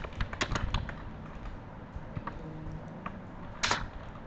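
Computer keyboard being typed on: a quick run of keystrokes in the first second, then a few scattered keypresses, one louder near the end.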